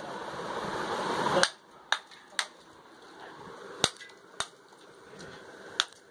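Ice chunks clinking against each other and the rim of an aluminium pot as a block of ice is handled: about six sharp, irregular clicks. Before them, a steady noisy background cuts off abruptly about a second and a half in.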